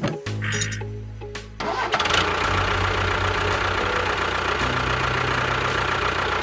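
Engine sound that picks up about two seconds in and then runs steadily with a low hum, over background music.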